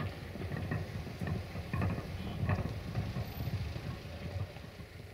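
Wind buffeting the microphone: an uneven low rumble that swells and fades, with a few short faint sounds higher up.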